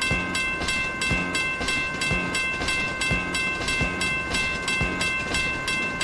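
Cartoon railway-crossing sound effects: a steady, high warning tone over even, rapid ticking, about three ticks a second, with a low pulse about once a second.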